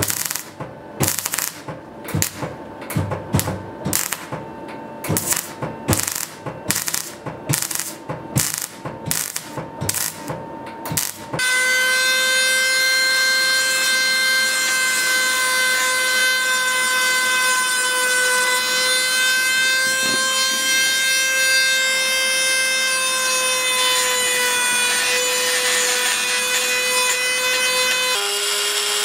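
Welding arc crackling and spitting in irregular spurts for about the first eleven seconds. Then a handheld rotary tool with a burr grinding a slot in a steel block gives a steady high whine that sags slightly under load. Near the end it switches abruptly to a lower whine that sinks in pitch.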